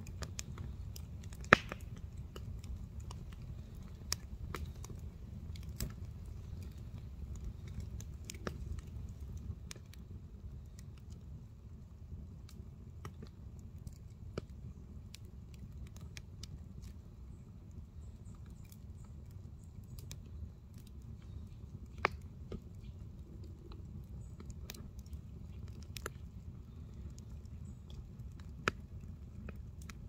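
Wood campfire burning, crackling with scattered sharp pops, the loudest about a second and a half in and again around twenty-two seconds, over a steady low rumble.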